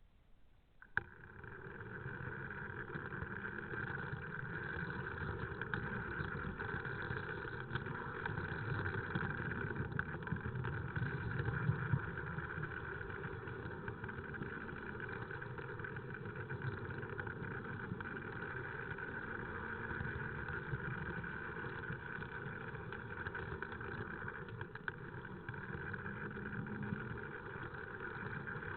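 Tri-ang Jinty OO-gauge model locomotive running along its track. It sets off with a click about a second in, then runs on as a steady electric-motor whine over the rumble of its wheels, with occasional faint clicks.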